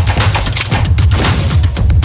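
Dance music with dense, hard percussive hits over heavy bass.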